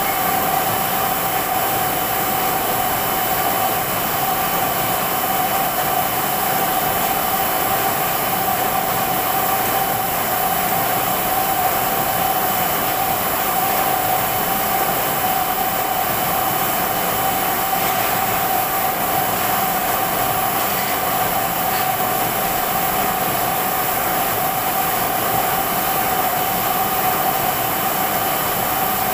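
Heidelberg GTO 52 sheet-fed offset printing press running at a steady pace: an even mechanical noise with a steady whine on top that does not change.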